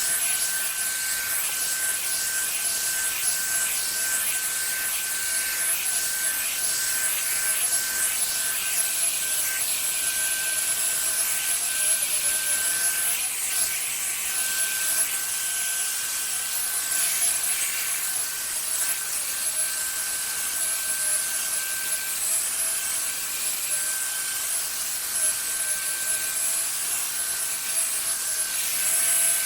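Revlon hot-air dryer brush running steadily: the rush of its fan blowing air, with a steady motor whine over it.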